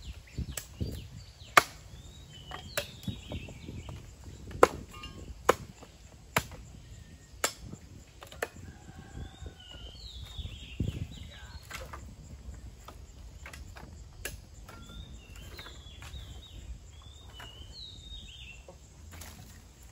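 Pieces of firewood knocking together as they are handled and stacked: sharp wooden clacks about once a second for the first eight seconds or so, then only a few scattered ones.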